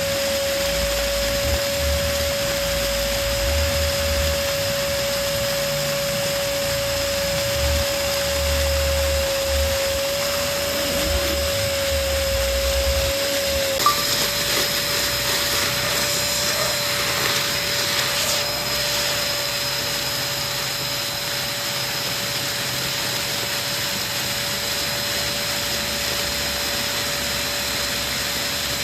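Electric balloon pump running steadily with a constant hum and an airy hiss as it blows up a balloon. A small click comes about 14 seconds in, where the hum's pitch shifts slightly.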